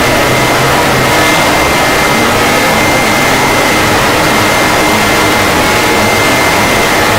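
Mock emergency-alert alarm blown out to extreme loudness: a steady, harsh roar of clipped distortion with faint held tones and a thin high tone running through it, unchanging throughout.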